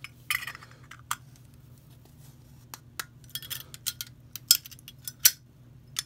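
Metal clicks and scrapes of a Thunderbird butane insert being pushed into a Zippo 1935 replica's chrome case and the lid being worked: a short scrape near the start, then a run of sharp clicks, loudest about four and a half and five seconds in. The insert is jamming in the case and keeps the lid from closing properly.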